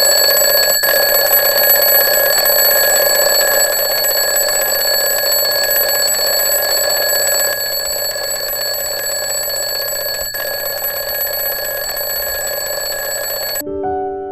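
An alarm clock ringing without a break, loud and steady, then cutting off suddenly near the end. A few soft piano notes follow the cutoff.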